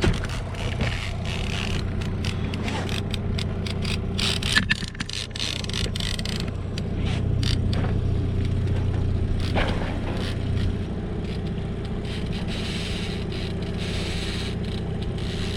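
Boat motor running steadily at trolling speed, with repeated scraping and clicking of fishing gear being handled on board.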